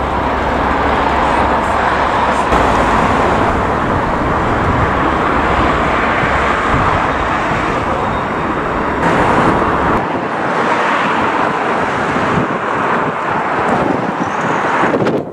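Steady vehicle noise: a loud rushing with a low rumble underneath that drops away about ten seconds in.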